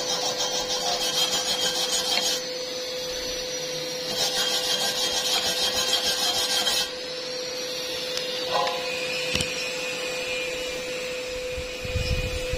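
Power wire brush, an angle-grinder wire wheel, scrubbing slag and spatter off a fresh weld bead, in two passes of about two to three seconds each. Between and after the passes the tool runs off the metal with a steady whine.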